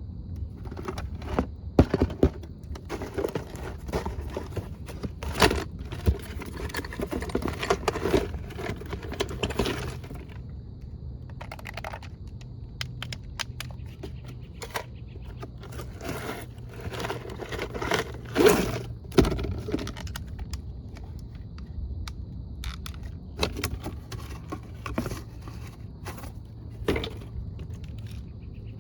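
Remote-control toy excavator at work: its small electric motors run with a steady hum and faint high whine under irregular scraping, rattling and clicking, with clusters of louder clattering knocks.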